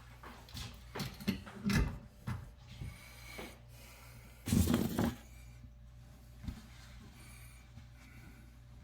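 Knocks and clicks of parts and tools being handled, in a quick run at first, then a louder half-second scrape or rush about four and a half seconds in and one more click later, over a steady low hum.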